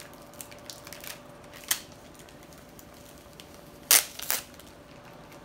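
Plastic snack wrapper crinkling as it is handled: scattered light crackles, a sharper crackle about a second and a half in, and the loudest two close together near four seconds in.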